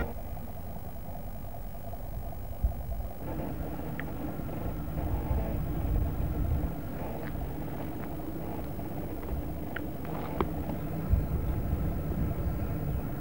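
Low, unsteady rumble of outdoor air buffeting a handheld camcorder's microphone, with a few short knocks from the camera being handled.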